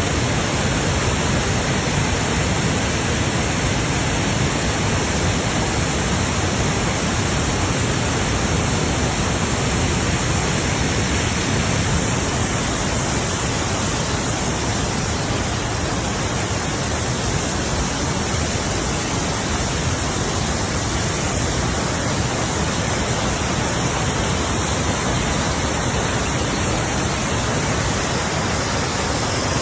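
Waterfalls: a steady, loud rush of falling water.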